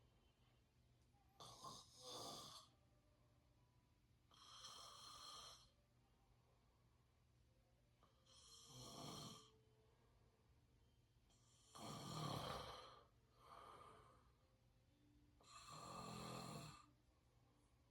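A person snoring through an open mouth: faint snoring breaths a few seconds apart, six in all, the fifth followed closely by a shorter one.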